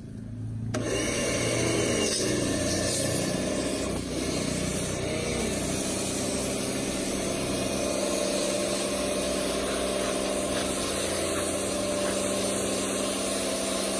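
Pressure washer running, its pump droning under the hiss of the jet spraying water onto stone paving; it starts abruptly about a second in and continues steadily. The jet is rinsing cleaning product off the stones.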